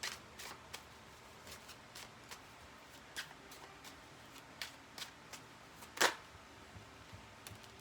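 Tarot cards being shuffled and handled: a run of light card snaps and clicks, with one louder slap about six seconds in.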